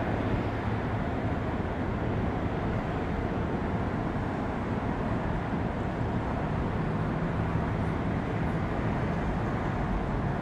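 Distant Airbus A330-300 airliner's jet engines on the runway, heard as a steady, even rumble with no distinct tones.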